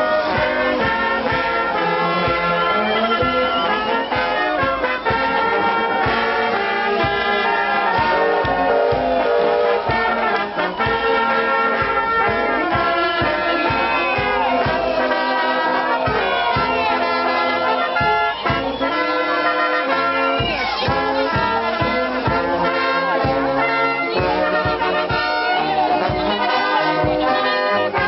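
Brass band music playing continuously, with trumpets and trombones carrying the tune.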